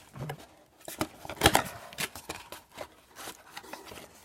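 Cardboard blaster box and the hockey card packs inside it being handled: scattered light rubs and taps, with one sharper knock about a second and a half in.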